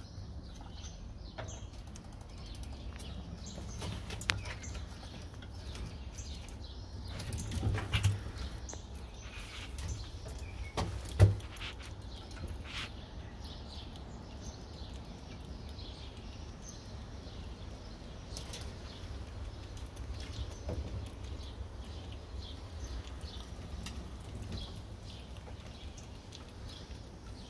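Gray squirrels cracking and gnawing nuts and moving about on a wooden platform: scattered small clicks and scrapes, with sharper knocks about 4, 8 and 11 seconds in, over a low steady rumble.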